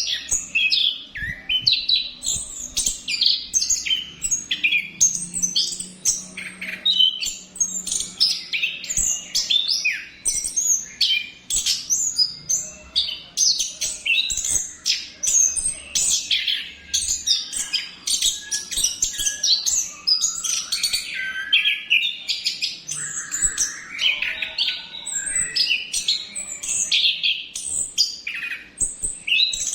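Orange-headed thrush singing a long, unbroken rolling song of rapid, varied chirps and whistles.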